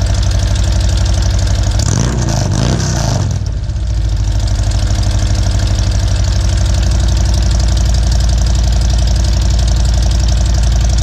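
Harley-Davidson Road King V-twin motorcycle engine idling through an aftermarket or stock exhaust, with one quick throttle blip about two seconds in that rises and falls back to a steady idle.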